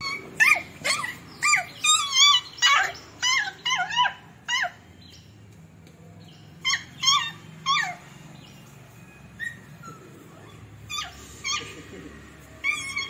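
Puppies yelping and whining during rough play. A quick run of about ten short, high-pitched yelps comes in the first five seconds, then a few scattered single ones.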